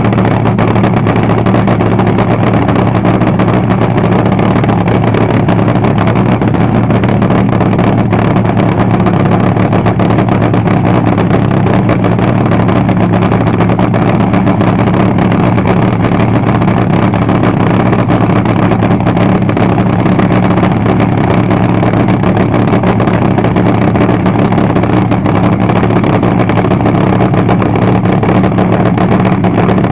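Supercharged, nitromethane-burning front-engine fuel dragster V8 running loud and steady at a cackle idle through open headers, holding one pitch with no revs.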